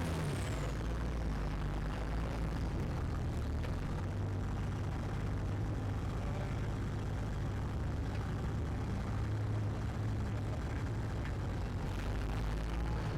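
Competition 4WD truck engine running steadily at low revs as it crawls over rocks, a constant deep rumble with no revving.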